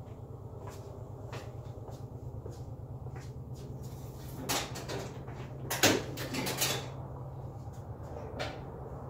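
Datsun 280Z's driver's door being opened, a few clunks and clicks of the latch and door, the loudest about six seconds in, over a steady low hum.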